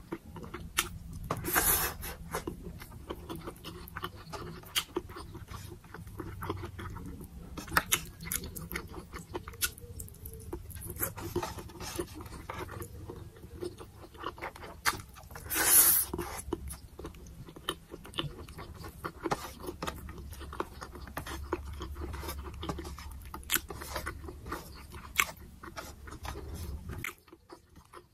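Close-miked eating: chewing with wet mouth clicks and smacks, and fingers scraping and gathering rice on the plate. There are two louder noisy bursts, about a second and a half in and near the middle, and a low hum underneath that cuts off near the end.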